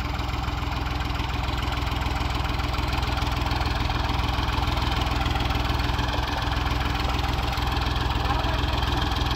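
Farmtrac 60 tractor's three-cylinder diesel engine idling steadily with a fast, even beat.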